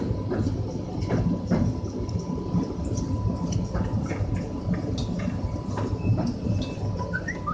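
Cab of a CNR Mitsubishi electric multiple unit rolling along the track: a steady running rumble with irregular clicks and knocks of the wheels over rail joints and switches, and a faint steady tone underneath. A few brief high chirps come near the end.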